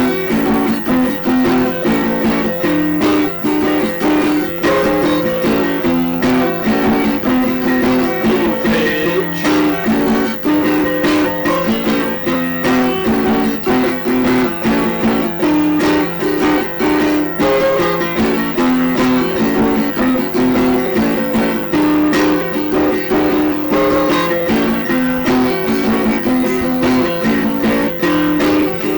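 Instrumental music of plucked guitar: a quick picked melody moving over a steady, unchanging low drone note.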